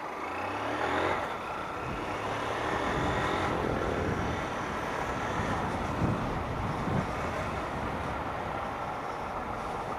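Honda CG Start 160 single-cylinder motorcycle engine running while being ridden in traffic, under a steady rush of wind and road noise.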